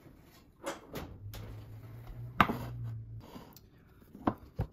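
A covered glass dough container being handled on a stone counter, its snap-on plastic lid being prised off: several sharp knocks and clicks, the loudest about two and a half seconds in and two quick clicks near the end. A low hum runs for about two seconds in the middle.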